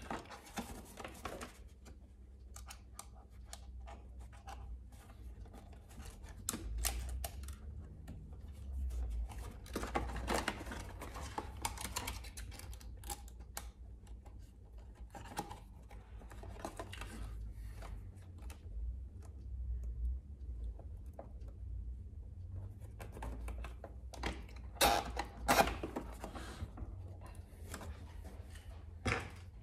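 Nylon zip ties being pulled tight through a plastic inner fender, their ratchet teeth clicking in quick irregular runs, with plastic handling knocks and rattles. The loudest runs of clicks come about ten seconds in and again near twenty-five seconds.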